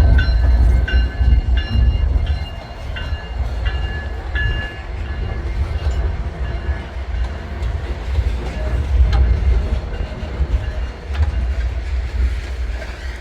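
Freight train rolling past, its wheels clicking over the rail joints, with heavy wind rumble on the microphone. Short, faint high tones repeat through the first four seconds.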